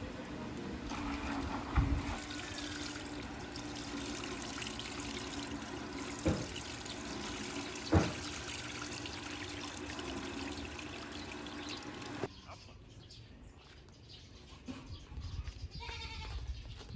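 Water running steadily, with three sharp knocks along the way. About twelve seconds in it cuts off suddenly to a quieter stretch with a few short calls.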